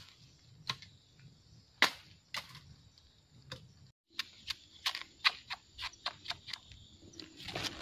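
Machete chopping into young bamboo shoots: a few sharp, well-spaced chops, then a quicker run of sharp cuts, about three a second, as the shoots are trimmed on a concrete slab.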